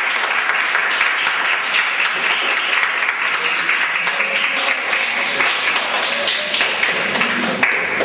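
Audience of students applauding: dense, steady clapping from many hands.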